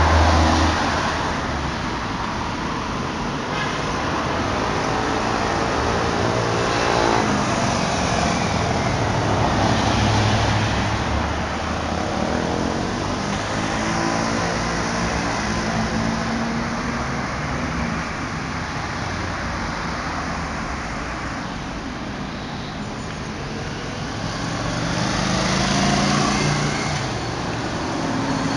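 Road traffic heard through a smartphone's microphone: cars driving past one after another, each engine rising and falling in pitch as it passes, over a steady traffic noise. A motorcycle rides past near the end, the loudest pass.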